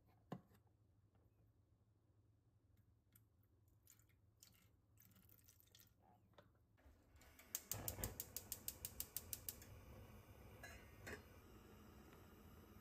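Water poured into a stainless saucepan of eggs. Then a gas hob's igniter clicks rapidly, about ten clicks a second for two seconds, until the burner catches and burns with a steady hiss.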